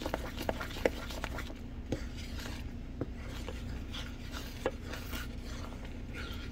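Wooden spoon stirring thick, boiling sugar-butter-honey syrup in a stainless steel saucepan, rubbing and scraping through the mixture with a few sharp clicks and knocks against the pan. A steady low hum runs underneath.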